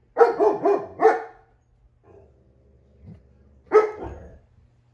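Young German Shepherd's warbling, Chewbacca-like groan-barks in a quick run of four or so pitched calls over the first second, then one sharp bark about three and a half seconds in.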